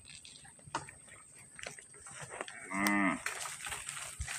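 One short moo from a cow, about half a second long, coming nearly three seconds in.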